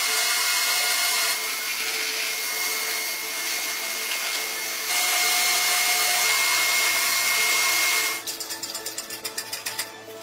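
Electric power tool running steadily on a wooden cart wheel, a continuous noise with a thin high whine; its tone shifts twice and it cuts off near the end.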